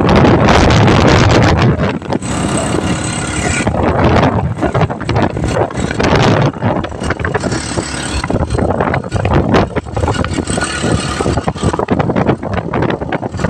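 Motorcycle tricycle on the move, heard from its sidecar: the small motorcycle engine running under a loud, fluctuating rush of road and wind noise.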